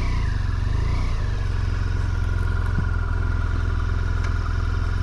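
BMW F800GT's parallel-twin engine running at low revs, its pitch wavering up and down twice in the first second or so before settling into a steady idle.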